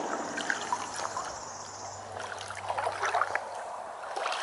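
Shallow river water trickling and splashing, with small irregular splashes.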